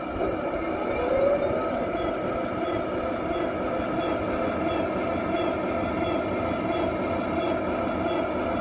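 Heng Long M1A2 Abrams RC tank running on its 6.0 electronics: a steady mechanical hum from its simulated engine sound, with a rising swoop in pitch about a second in, while the turret traverses and the gun barrel elevates.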